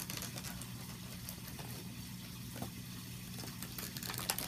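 Clear plastic toy packaging crinkling and clicking in the hands, in scattered small crackles that grow busier near the end, over a steady low hum.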